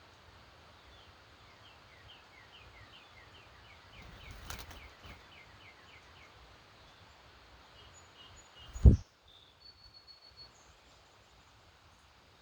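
Birds singing at dawn: a bird repeats short falling chirps, about two to three a second, for roughly six seconds, followed by a few thin high notes. A brief rustle comes midway, and a single sudden loud thump about nine seconds in is the loudest sound.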